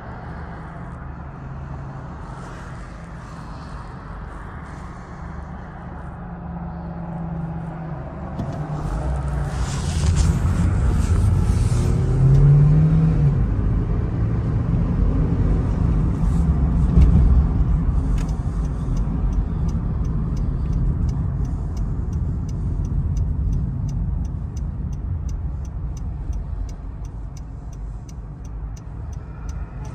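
Cabin sound of a 2012 Honda Civic's four-cylinder engine and tyres: low and quiet at first, then building as the car pulls away about eight seconds in, with a brief rise in engine pitch. In the last third the turn signal ticks steadily over the road noise.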